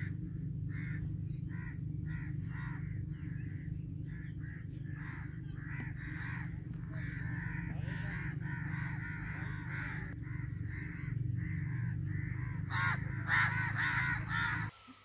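Birds calling in many short, repeated calls over a steady low hum; the hum cuts off just before the end.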